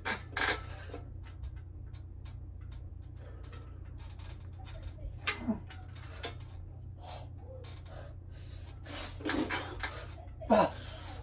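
A man breathing hard while doing pull-ups, with a few short exhales and grunts of effort, over a steady low hum.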